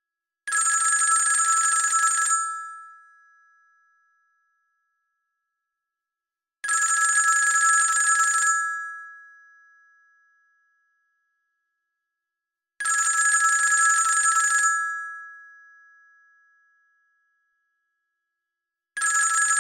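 Old-fashioned telephone bell ringing in bursts of about two seconds, roughly six seconds apart. Each ring fades away after it stops, and a fourth ring begins near the end.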